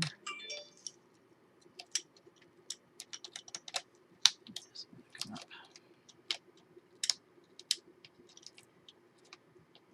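Irregular light clicks and taps of chipboard and paper pieces being handled and set down on a craft table, over a faint steady hum.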